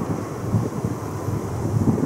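Gusty wind buffeting the microphone over the steady jet noise of a Boeing 737-300's CFM56 engines as the airliner rolls out along the runway after touchdown.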